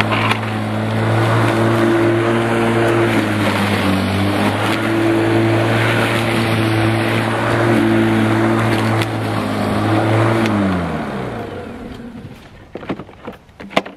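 Bosch Rotak 34R corded electric rotary lawn mower's 1300 W motor running as it cuts grass, its pitch dipping a few times under load. About ten and a half seconds in it is switched off and winds down with a falling whine, followed by a few knocks and clicks.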